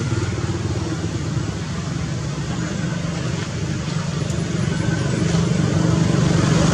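Steady engine drone of road traffic, getting louder over the last couple of seconds.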